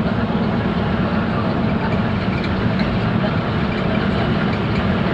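Cabin noise inside an intercity bus cruising at highway speed: a steady low engine drone with road and wind noise.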